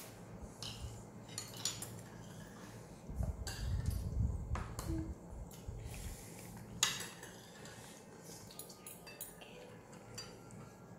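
Metal spoons and forks clinking and scraping against dinner plates and a bowl in scattered clicks, the loudest about seven seconds in.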